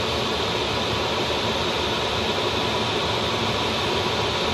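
Steady rush of airflow around the cockpit of an engineless Duo Discus glider in flight: an even hiss with no engine note.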